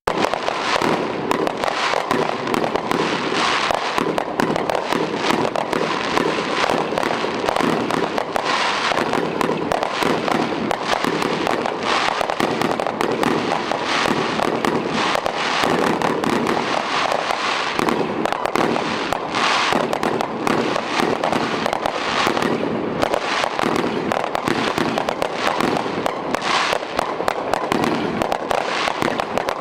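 Fireworks finale: a dense, unbroken barrage of rapid explosions, one shell after another with no pauses.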